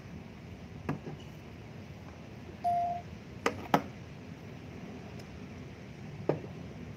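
Handling noise from the recording device: a few light knocks and clicks, two of them close together about three and a half seconds in, and a short electronic beep at one steady pitch just before them, over a steady hiss.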